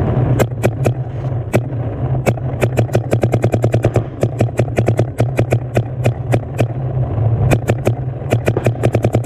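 Paintball markers firing, single shots at first and then rapid strings of about eight shots a second, over a steady low hum.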